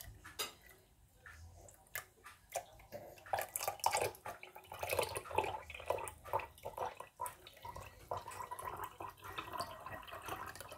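Homemade fruit juice poured in a thin stream from a jug into a drinking glass, splashing and dripping as the glass fills; the pouring gets louder about three seconds in.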